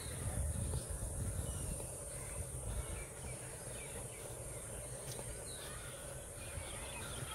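Outdoor garden ambience: scattered short bird chirps over a steady high-pitched insect drone, with a constant low rumble underneath.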